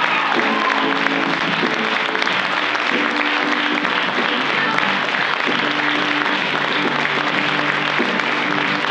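Theatre audience applauding through a curtain call, with instrumental music of held chords playing underneath.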